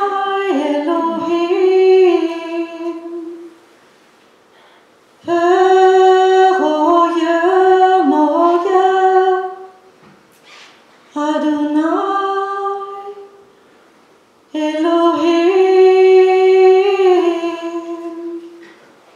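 A woman singing solo and unaccompanied into a microphone: four slow, held phrases with short pauses between them.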